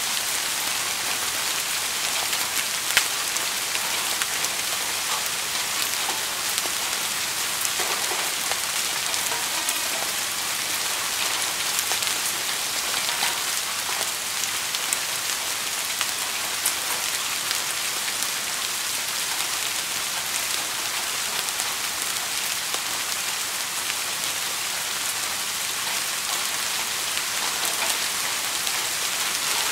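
Steady rain falling, a dense even hiss with individual drops ticking through it; one sharper drop hits about three seconds in.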